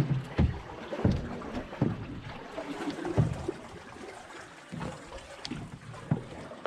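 Water splashing and lapping around kayaks and paddles on the river, with wind on the microphone and irregular low thumps.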